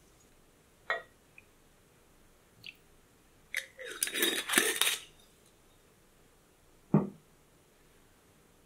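Utensils knocking and clinking against an enamel saucepan of cream: a few separate knocks, with a louder, denser clatter lasting about a second and a half about halfway through.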